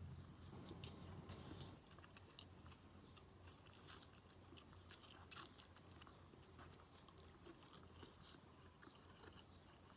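Faint, close-miked chewing of takeout Chinese food, with soft wet mouth clicks throughout. Two sharper crunches stand out about four and five and a half seconds in.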